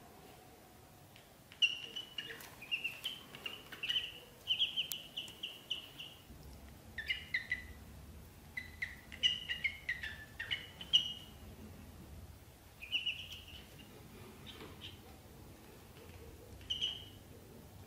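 Ducklings peeping: runs of quick, high chirps, a few of them sliding down in pitch, with a few scattered peeps later on.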